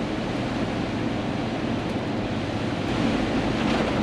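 Steady cab noise of a large truck driving at speed through heavy rain: rain and spray on the cab and tyres hissing on the wet road, over the diesel engine's low hum.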